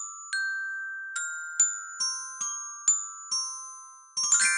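Short outro jingle on a bright mallet-percussion instrument: about seven single ringing notes, one every half second or so, then a quick flurry of notes near the end that rings on.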